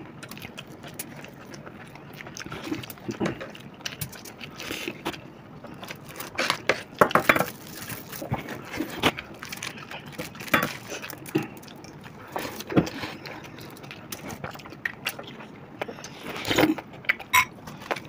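Close-miked eating sounds: chewing and mouth smacks of people eating biryani by hand, with occasional clinks of a spoon against a glass bowl. The small sounds come irregularly, a few louder ones standing out.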